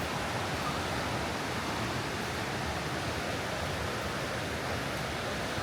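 Steady rush of water from a waterfall, an even hiss with no separate splashes.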